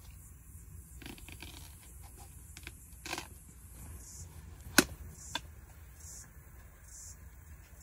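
Scraping and handling noises broken by a few sharp clicks, the loudest a single sharp click about five seconds in. Underneath is a low steady rumble, and in the second half high short chirps repeat about once a second.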